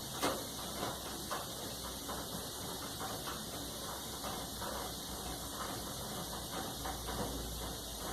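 Light clicks and scrapes of a screwdriver working a screw loose from a Brastemp clothes dryer's front panel, with one sharper click near the start.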